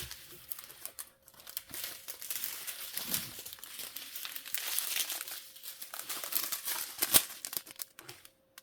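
Plastic packaging from a diamond-painting kit crinkling and rustling as it is handled and sorted through, with one sharp click about seven seconds in.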